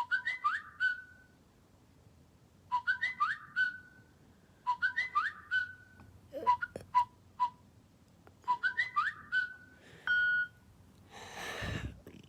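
A Sony ringtone playing through a Samsung Galaxy A7 (2017) phone's speaker. It is a short, whistle-like phrase of quick rising notes, played four times with a few single beeps between, and a short burst of noise comes near the end.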